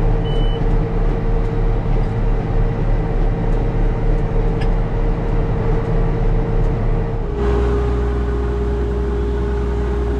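Case IH 7120 tractor's six-cylinder diesel engine running steadily, with a short high beep near the start. The sound changes abruptly about seven seconds in, and the engine hum carries on after it.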